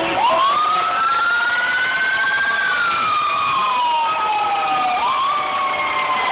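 Fire truck siren wailing. It sweeps up sharply just after the start, climbs slowly, falls away over a couple of seconds, and starts rising again near the end.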